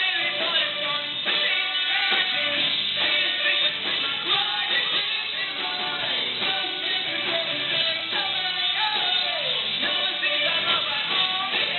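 Rock band playing a song, with guitar and a singing voice.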